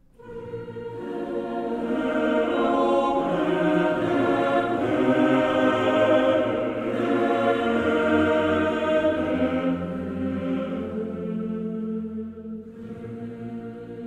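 Background music: choir-like voices holding long, sustained chords, swelling in over the first couple of seconds.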